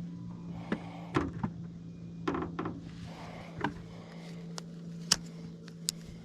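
Scattered knocks and clicks of fishing gear being handled, the sharpest about five seconds in, over a steady low hum.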